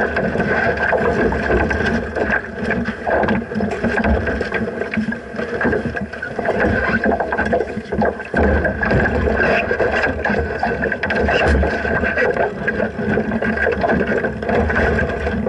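Wind and water noise aboard a small sailing dinghy under way, with irregular low buffets of wind on the microphone.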